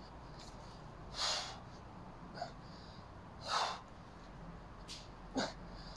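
A man's heavy, forceful breaths as he strains through pull-ups deep into a long, tiring set: two loud exhales about two seconds apart, then a shorter, sharper one near the end.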